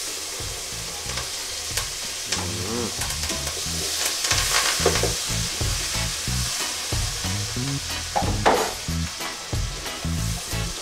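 Chopped onions, tomatoes, peppers and herbs sizzling in hot butter in a pot, stirred with a spatula that clicks against the pot now and then.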